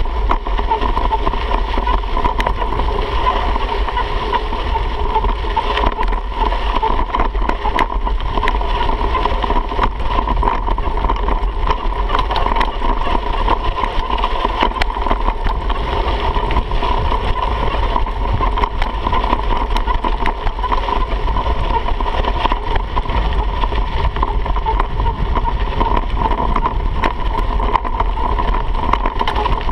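Mountain bike running fast downhill on a dirt trail, heard from a handlebar-mounted camera: a steady rumble of wind and tyre noise, with frequent small rattles and knocks as the bike goes over bumps.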